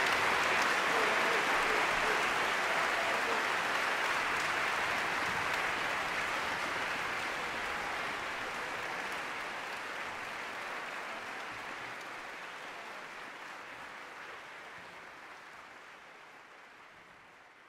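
Concert audience applauding, a dense steady clapping that fades steadily away.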